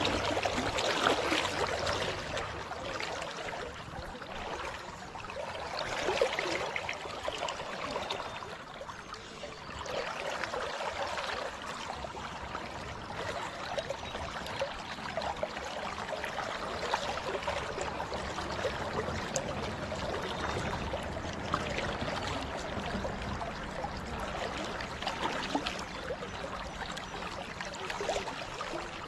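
River current flowing and gurgling around a wading angler, a steady rush of moving water with a few louder swells.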